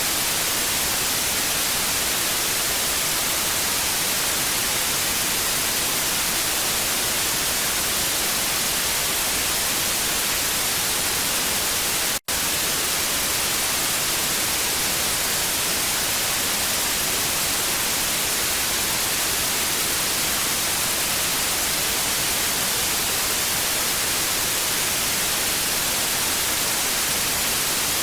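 Television static: a steady, even hiss, brightest in the high range, that cuts out for a split second about twelve seconds in and resumes unchanged.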